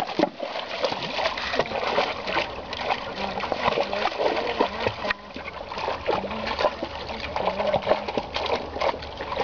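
A thrown rock lands in a shallow stream with a splash, then water sloshes and splashes continuously as a Weimaraner wades through it, nosing underwater for the stone.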